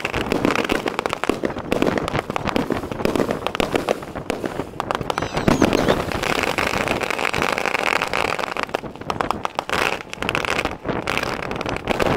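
Aerial firework shells bursting in quick succession: a dense run of bangs and crackle, with the loudest burst about five and a half seconds in.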